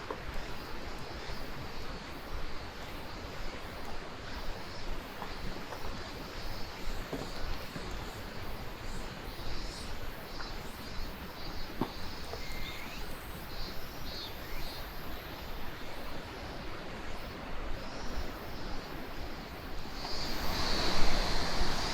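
Steady rush of a fast-flowing mountain river, with faint high chirps over it from time to time; the sound grows louder near the end.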